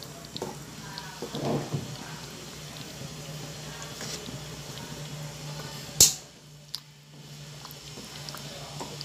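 Wooden spatula stirring a thick stew sauce in a pot: wet squelching and scraping with small clicks, over a low steady hum. A single sharp knock about six seconds in is the loudest sound.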